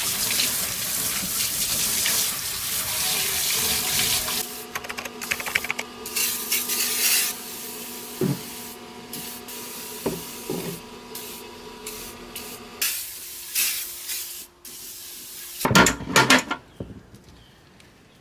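Liquid spraying in a steady hiss for the first few seconds, then in short on-and-off spurts with a few light knocks, and two louder bursts near the end.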